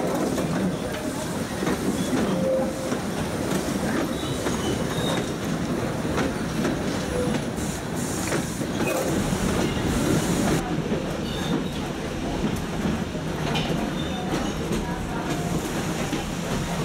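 Metre-gauge train running along the track, heard from on board its coach: a steady clatter of wheels on the rails, with a few brief wheel squeals.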